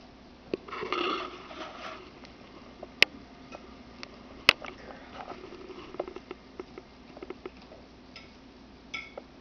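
A metal utensil tapping and scraping on a plate, in scattered small clicks, with two sharp loud clinks about three and four and a half seconds in. A brief higher-pitched sound comes about a second in.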